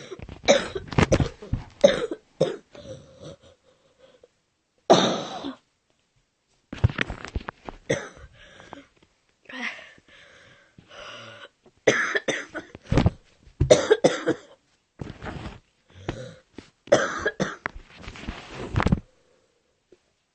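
A person in a coughing attack: many short coughs in quick groups, with brief breaks between the groups.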